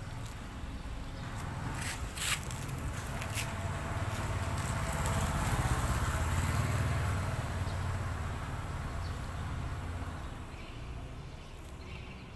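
A passing vehicle: a low engine rumble that swells to a peak about six seconds in, then fades away. A few sharp clicks come about two seconds in.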